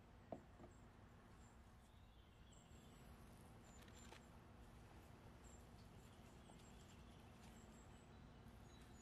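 Near silence with faint room tone, a single light click just after the start, and faint rustles as a gloved hand handles crisp fried fritters.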